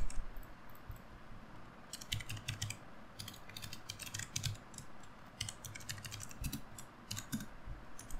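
Typing on a computer keyboard: quick, irregular runs of key clicks that pick up after a short lull of about two seconds at the start.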